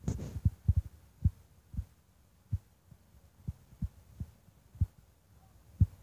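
Dull, low thumps hitting the camera microphone at uneven intervals: a quick cluster in the first second, then single knocks about once or twice a second, one of the strongest near the end.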